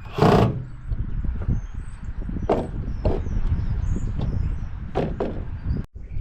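An old microwave being pulled apart by hand: a loud harsh scrape or wrench of its parts at the start, then scattered knocks and clanks of the casing and components. The sound cuts off abruptly near the end.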